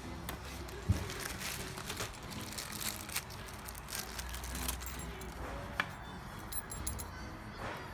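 A bunch of keys jangling and clinking as they are handled to unlock the e-bike battery's mount lock, with one louder knock about a second in.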